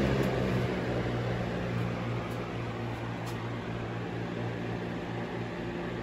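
Lasko Power Plus B20540 20-inch box fan running steadily: a constant rush of air from the blades over a low, even motor hum.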